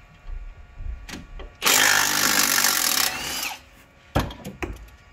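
A power tool runs in one burst of about a second and a half, with a short pitch sweep as it stops. A few light knocks come before it and several sharp metal clinks come after.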